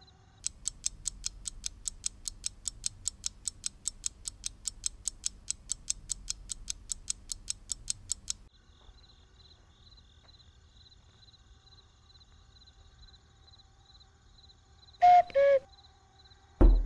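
Clock ticking, fast and even, stopping suddenly about eight seconds in. Later come two short tones, the second lower, and just at the end a loud low rumble begins.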